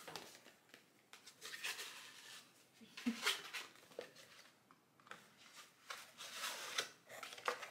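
Paper wrapping rustling and crinkling in short, irregular bursts as a small gift package is unwrapped by hand.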